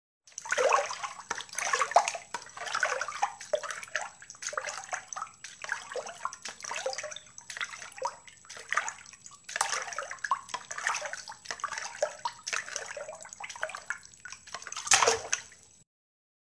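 Water splashing and sloshing in irregular surges, with a louder splash near the end before it cuts off suddenly.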